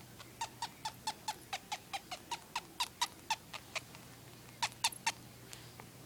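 A hamster sneezing in a fast run of tiny, sharp sneezes, about four to five a second for nearly four seconds, then three more after a short pause.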